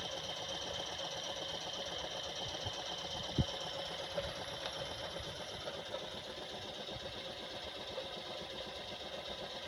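Jensen Model 50 toy steam engine running steadily, a fast, even mechanical patter. One sharp click comes about three and a half seconds in.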